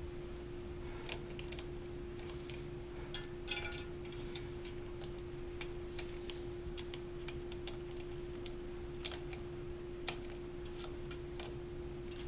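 Irregular light clicks and ticks of tools and metal parts handled while working on a mountain bike's derailleur, over a steady hum.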